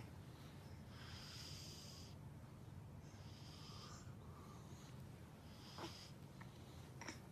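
Faint breathing of a baby with a cold and a stuffy nose: three breaths about two seconds apart over a low steady hum.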